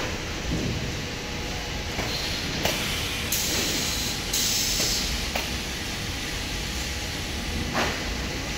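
Automatic ceiling-board packaging line running: steady machine noise from roller conveyors and a robot palletizer. Several bursts of hiss about a second long, and a few sharp knocks.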